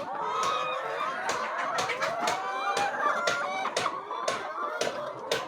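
A flock of laying hens clucking, many birds calling over one another, with frequent sharp clicks among the calls.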